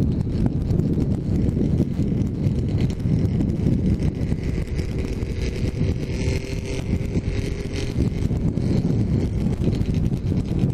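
Heavy wind buffeting on a helmet-mounted camera of a motorcycle rider at road speed, a steady rough rumble that drowns most else. A faint engine tone and a higher hiss come through around the middle.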